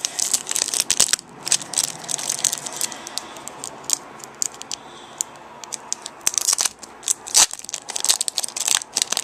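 Foil wrapper of a Pokémon trading-card booster pack crinkling and crackling in the hands as it is worked at and torn open, dense at first, sparser for a few seconds in the middle, then busy again near the end.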